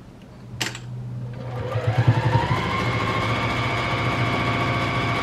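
Domestic electric sewing machine stitching through layered cotton and muslin: it speeds up over the first couple of seconds, then runs at a steady pace. A single click near the start.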